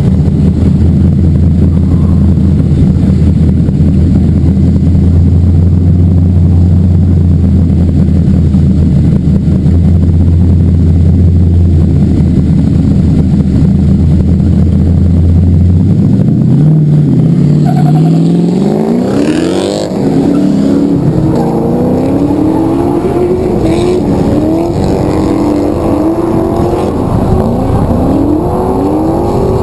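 Drift car engines: a steady idle, then a little over halfway through an engine revs up and down again and again, its pitch rising and falling, as a car sets off onto the course.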